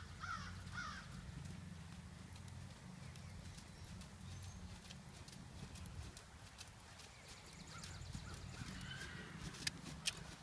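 Hoofbeats of a Friesian horse trotting on a sand arena, with scattered clicks over a low steady rumble and two sharp clicks near the end. A crow caws a few times at the start.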